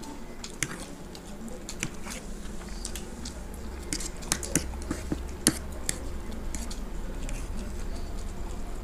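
Two people eating egg chow mein with forks: chewing and slurping of noodles, with sharp clicks and scrapes of forks on the plates. The clicks are thickest and loudest a little past the middle. A low steady hum runs underneath.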